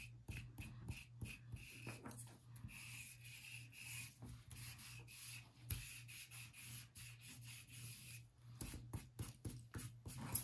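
Foam ink dauber rubbed and dabbed along the edges of laser-cut chipboard on paper, a quiet run of short scuffing strokes, a few a second.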